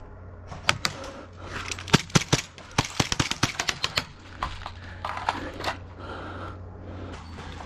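Airsoft gunfire: a run of sharp, irregular cracks and clicks, thickest between about two and four seconds in.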